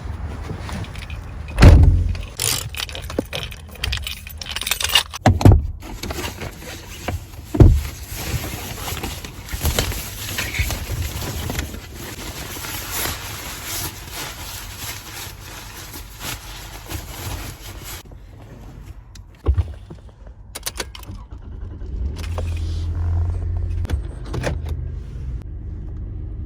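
Sounds of getting into and starting a minivan: three heavy thumps in the first eight seconds, jingling and rustling, then a low engine rumble swelling near the end.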